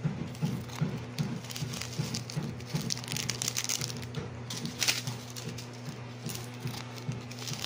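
Dry crinkling and crackling as a brown topping is sprinkled onto a plate of instant spaghetti, in irregular crisp strokes over a steady low hum.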